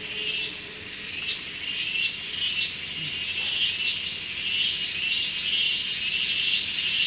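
Chorus of insects such as cicadas or crickets: a loud, shrill, high-pitched buzz that pulses about once or twice a second and swells toward the end.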